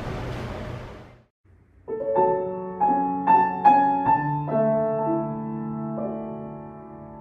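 A steady noise fades out in the first second, and after a brief gap background piano music begins: a slow melody of struck notes, several sounding together and left to ring out.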